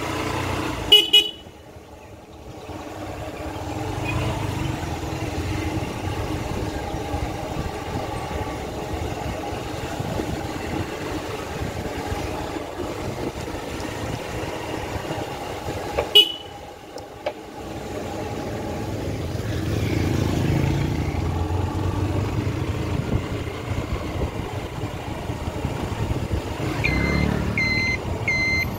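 Road vehicles running, with steady engine and road noise and two short horn toots, one about a second in and one around the middle. Near the end comes a run of evenly spaced electronic beeps, about two a second.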